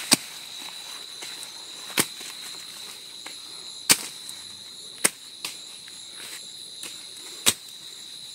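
Dao (machete) blade chopping through old okra stalks: five sharp chops, about one every second or two, with a few lighter cuts between. Under them runs a steady high drone of insects.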